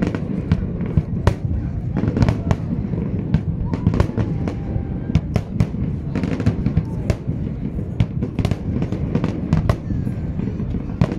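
Fireworks display: shells bursting in a rapid, irregular series of sharp bangs and crackles, several a second, over a continuous low rumble.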